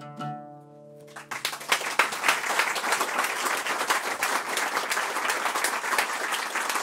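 The last notes of an oud ring out and fade, then about a second and a half in a small audience breaks into applause, a steady patter of clapping.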